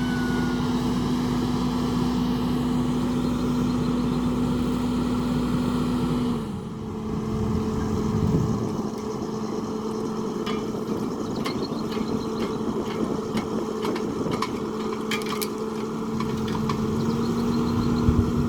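An engine running steadily. About six seconds in its speed drops a little, and near the end it picks back up. Scattered short ticks and knocks come through in the middle.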